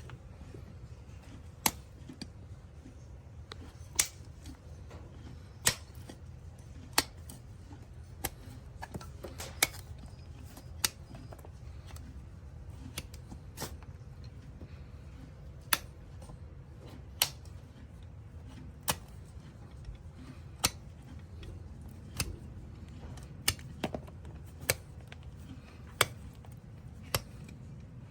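Farrier's hoof nippers snipping through a horse's hoof, one sharp snap every second or two at an uneven pace, over a steady low rumble.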